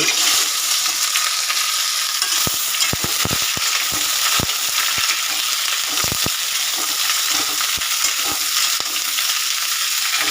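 Pointed gourd (potol) pieces frying in hot oil: a loud, steady sizzle that starts abruptly as they go into the pan. Sharp knocks of stirring against the pan come between about two and a half and six seconds in.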